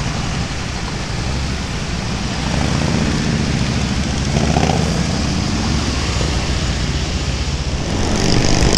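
Motorcycle engines running at low speed in slow, dense traffic, with Harley-Davidson touring bikes right alongside, over a haze of road noise. The low rumble grows a little louder about two and a half seconds in.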